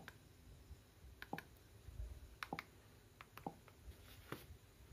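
Faint, irregular clicks, about ten of them, spaced unevenly, sometimes two or three close together.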